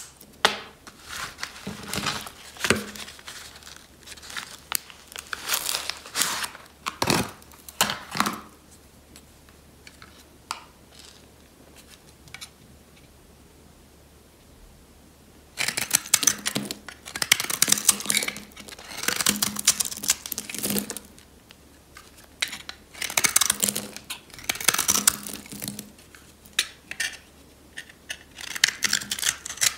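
Utility-knife blade scraping thin curls off a hard, dry bar of soap: crisp, crunchy crackling strokes in quick runs. The strokes thin out to a lull in the middle, then come back louder and denser from about halfway through.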